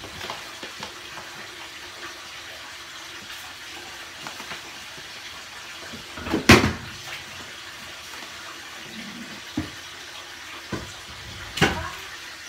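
Tap water running steadily into a bathtub, with a few sharp knocks over it, the loudest about six and a half seconds in.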